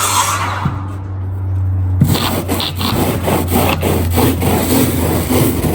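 Sawing, with quick repeated cutting strokes from about two seconds in, over a steady low hum.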